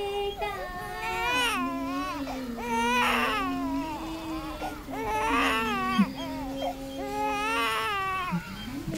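A baby crying in repeated wavering wails, over a steady low held tone that shifts pitch a few times and stops near the end.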